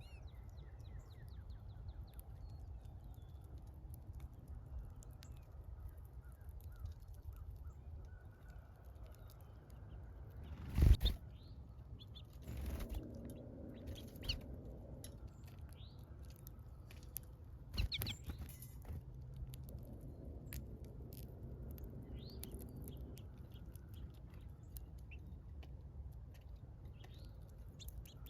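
Small birds chirping faintly now and then over a steady low rumble, broken by a few sudden knocks, the loudest about eleven seconds in.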